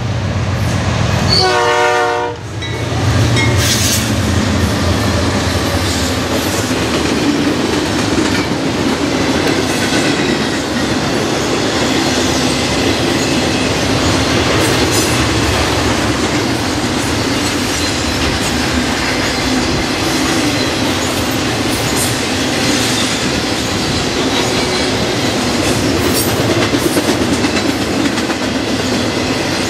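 Norfolk Southern intermodal freight train passing close by. Its GE diesel locomotives go by in the first couple of seconds, then a long string of trailer-laden flatcars follows with a steady rumble and clatter of wheels over the rails.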